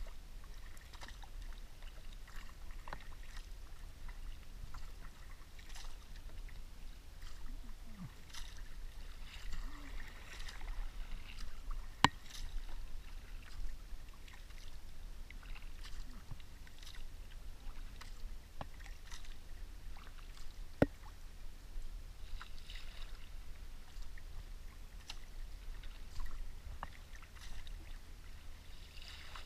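Kayak paddling: paddle blades dipping and pulling through the water with splashing and dripping, and water lapping at the hull. Two sharp knocks stand out, one about twelve seconds in and one about twenty-one seconds in.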